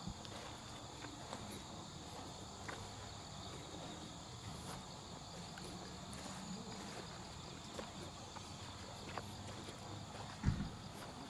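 Faint chorus of insects chirping steadily in the grass, with scattered small clicks and a dull thump near the end.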